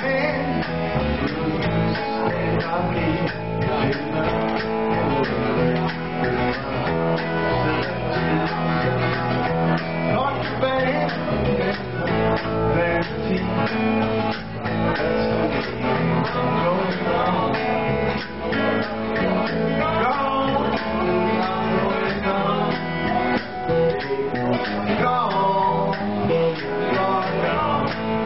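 Live band playing: acoustic and electric guitars strummed over a drum kit.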